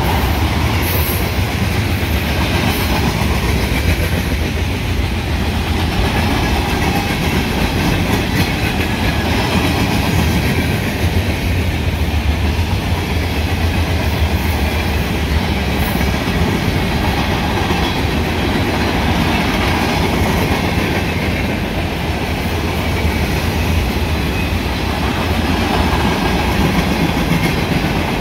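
Freight cars of a Union Pacific mixed freight train, mostly tank cars and covered hoppers, rolling steadily past: a continuous loud rumble of steel wheels on the rails.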